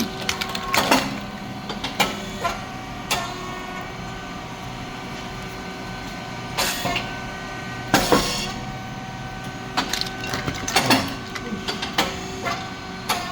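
SYP4509 rice cake popping machine running through its popping cycle: a steady machine hum with repeated clanks and clicks, and two louder pops with a short hiss about seven and eight seconds in.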